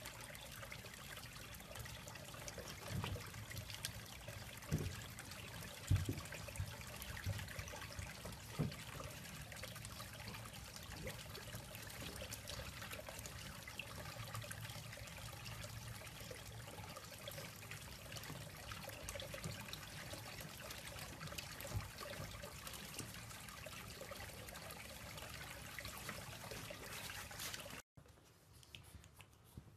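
A steady hiss like falling or running water, with a few soft knocks in the first nine seconds. It cuts off sharply near the end, leaving near silence.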